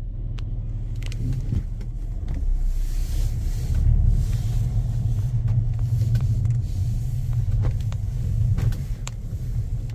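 Low, steady rumble of a car's engine and tyres heard from inside the cabin while driving slowly, with a few faint clicks.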